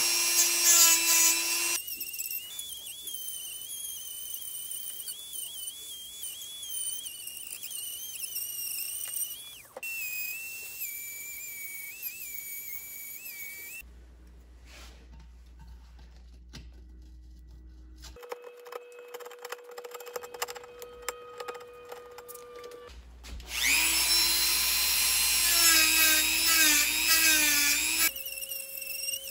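Dremel rotary tool with a sanding disc grinding excess cured epoxy off the seams of a repaired ceramic bowl, its motor whine wavering in pitch as the disc bites. The grinding is loudest for the first couple of seconds and again near the end, with quieter stretches of thinner whine between.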